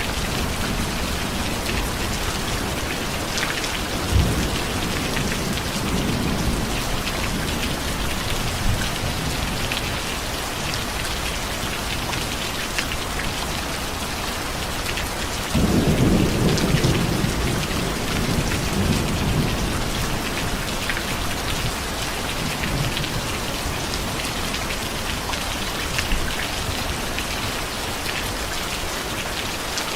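Steady heavy rain falling, with a sharp crack of thunder about four seconds in and a louder roll of thunder breaking suddenly about halfway through and rumbling on for several seconds.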